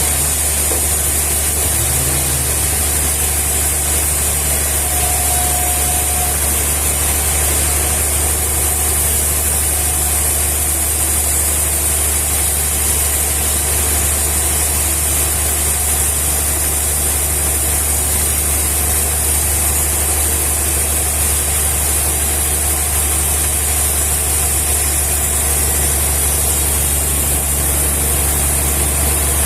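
An engine running steadily at idle: a constant low hum with a steady high hiss over it, unchanging throughout.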